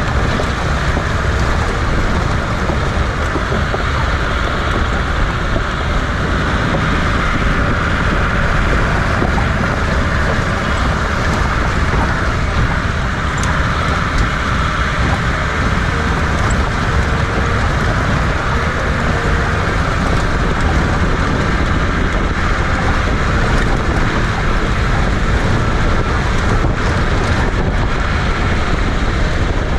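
Wind buffeting the microphone over the steady running of an open jeep's engine and its tyres on a dirt track.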